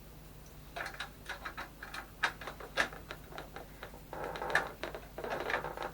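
Irregular clicks and taps from about a second in, then a longer stretch of scratchy scraping. This is tools and fingers prying at plastic and metal parts inside a desktop PC case.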